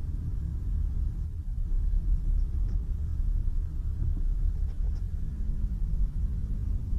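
Steady low rumble of a car on the move, road and engine noise heard from inside the cabin.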